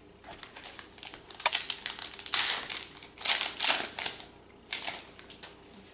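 Crinkling and rustling in several short bursts: a trading card pack's wrapper being handled and its cards shuffled through.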